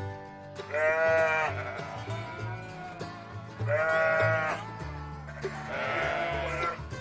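Sheep bleating: two loud, quavering baas about a second in and about four seconds in, with a softer bleat near the end, over background music with a bass line.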